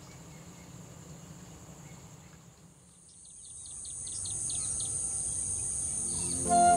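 Insects, crickets or cicadas, droning as one steady high-pitched tone that grows louder from about halfway in. A bird gives a quick run of about eight short chirps.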